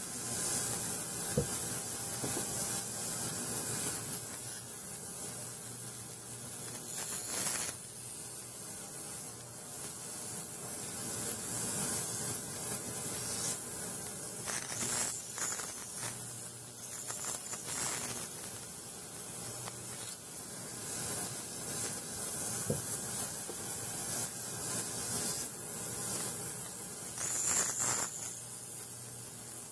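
Ultrasonic cleaner running with a steady hiss, broken four times by louder bursts of high hissing as the stones are worked in its water bath.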